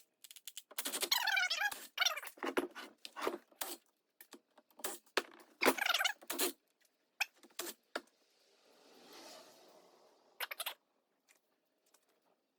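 Dog whining in high, wavering squeaks, broken up by scattered light clicks.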